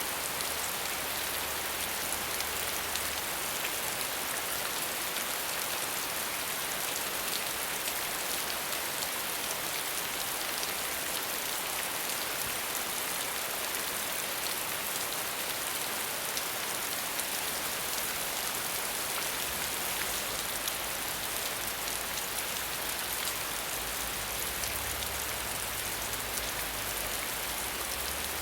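Steady heavy rain, an even hiss flecked with the ticks of many single drops.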